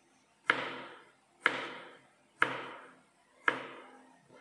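Chef's knife slicing through a vegetable and striking a plastic cutting board: four sharp chops, about one a second, each dying away quickly.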